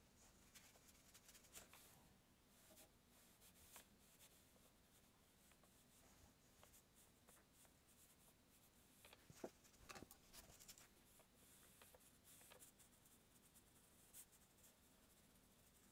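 Near silence, with faint scratching and tapping of a paintbrush working acrylic paint on the palette and canvas board, a few clearer ticks about nine to ten seconds in.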